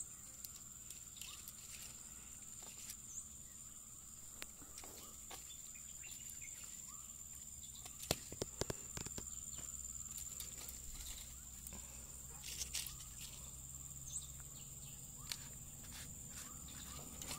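Faint outdoor background: a steady high-pitched insect drone, with scattered light clicks and taps and a few sharper clicks about eight seconds in.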